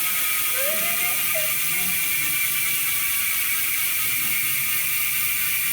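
Koozer XM460 rear hub freewheeling: its six pawls click over the 72-point ratchet ring so fast that they merge into a steady, high-pitched buzz.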